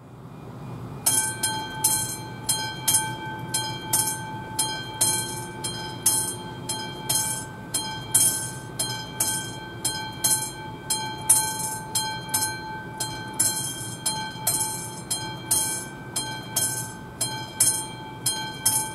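Level-crossing warning bell, the classic mechanical bell of an AŽD 71 crossing signal, starts about a second in and strikes steadily about twice a second, each stroke ringing on. It is the crossing's warning that a train is coming.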